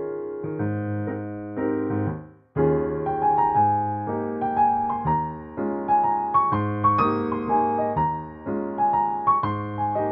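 Background piano music: chords, a short break about two and a half seconds in, then a melody over the chords.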